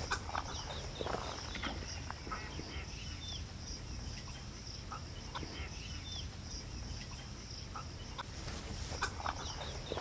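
Wild birds calling at scattered intervals, several short calls a few seconds apart, over a steady high-pitched drone.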